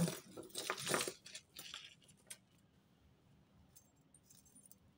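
Metal costume-jewellery chains and pieces jingling and clinking together as they are picked through by hand, busiest in the first two seconds, then only a faint click or two.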